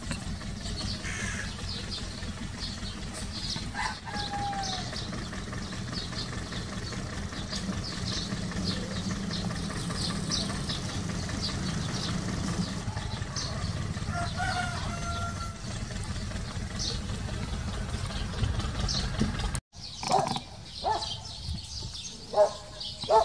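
A rooster crowing, with small birds chirping and a steady low machine hum underneath. The sound breaks off suddenly near the end.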